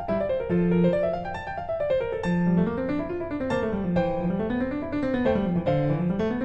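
Background piano music: gentle rising and falling arpeggios.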